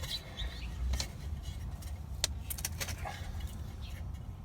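Light clicks and rattles of the pool pump motor's capacitor casing being handled and fitted back over the new capacitor, a few sharp ticks spread through, over a low steady rumble.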